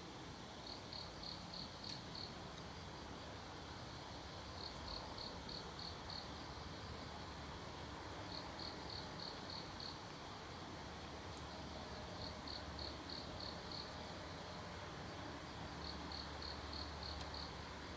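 Cricket chirping in short runs of about six quick pulses, a run every three to four seconds, over a faint steady background hiss.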